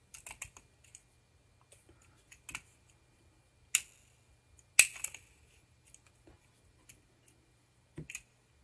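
Small metallic clicks and taps from handling a volume-control potentiometer's metal case as its clamp tabs are pressed down, its shaft held in an adjustable wrench. Scattered light clicks, with two sharper, louder clicks near the middle about a second apart.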